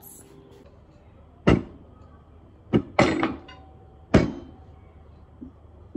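Kitchenware knocking: four sharp knocks, each with a short ring after it, the middle two close together.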